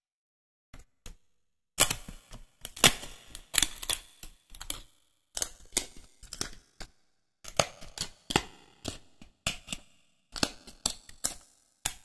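Irregular clicks, taps and crinkles of stiff printed 3D-puzzle pieces being handled and pressed together, with metal tweezers working the pieces, separated by moments of dead silence.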